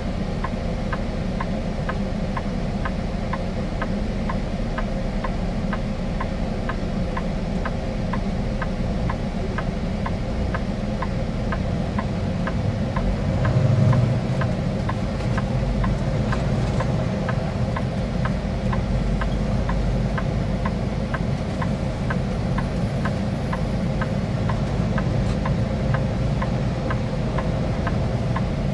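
Vehicle engine running, heard from inside the cab, with a turn-signal relay clicking steadily about twice a second. The engine pulls harder briefly about 14 seconds in as the vehicle moves off into the turn.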